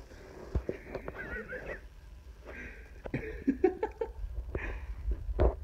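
A cat moving around inside a fabric carry bag: rustling and several soft knocks and thuds. A short high, wavering sound comes about a second in.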